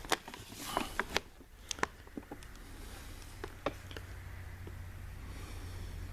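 Scattered small clicks and taps, most of them in the first two seconds, over a steady low hum of room tone.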